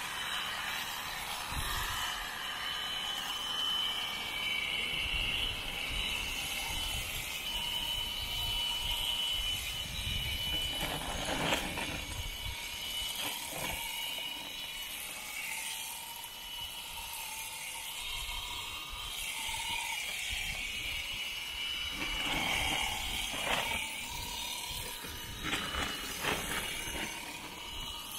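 Electric shearing handpiece running as it clips through alpaca fleece, with a high steady whine that wavers in pitch and a few short knocks.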